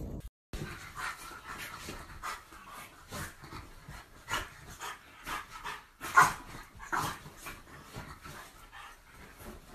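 French bulldog panting and huffing in short, irregular breaths, one or two a second, with one louder breath about six seconds in.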